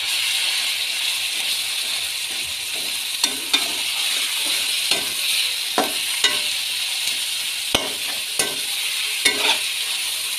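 Minced meat and sliced onions frying in oil in a metal pot: a steady sizzle with irregular scrapes and knocks as a spoon stirs the mince against the pot.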